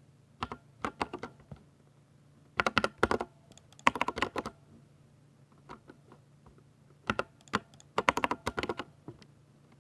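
Typing on a Ducky 60% mechanical keyboard with silver switches: quick runs of sharp keystroke clicks in bursts of a few keys, with short pauses between the bursts.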